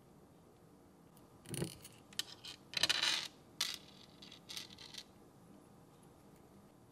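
Light metallic clinks and rattles from handling a small aluminum RC crawler axle assembly, a cluster of short clicks and clatters in the middle few seconds.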